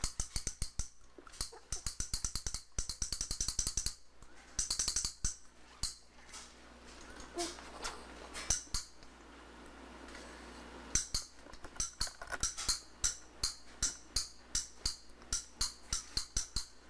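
A clicker toy being shaken: rapid clicking and rattling in short bursts, then a steadier run of clicks about three a second.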